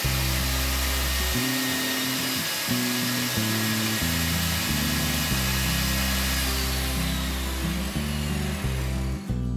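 Lotus table saw running as a wooden board is fed through the blade, ripping a thin strip. The steady saw noise plays under background music and stops sharply near the end.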